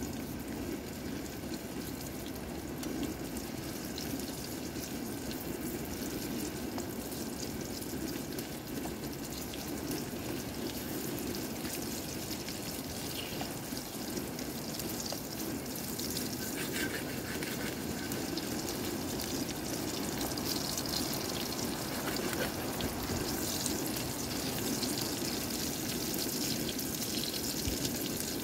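Steady running water with an even rushing sound, joined by a few faint small clicks and knocks from about halfway through.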